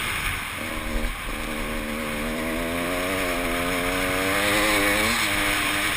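Dirt bike engine running under throttle in an off-road enduro, its pitch climbing steadily for a few seconds and then dropping suddenly near the end. There are a couple of brief knocks about a second in.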